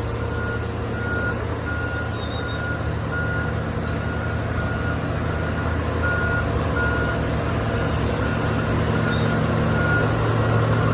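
Heavy construction machine's diesel engine running with its reversing alarm beeping at an even pace as it backs up; the engine grows a little louder toward the end.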